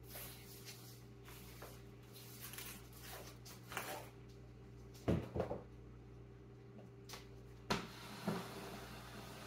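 Straw broom sweeping a hard floor in short strokes, followed by several sharp knocks and thumps, the loudest about halfway through, over a steady hum.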